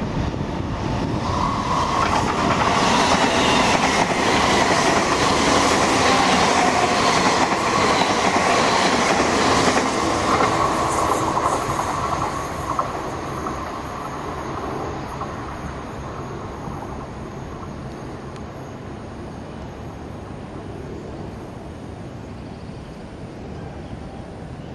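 MTR Airport Express Adtranz-CAF electric multiple unit train running along the track, with a rush of wheel and motor noise and a whine that are loudest over the first ten seconds. The sound then fades steadily as the train draws away.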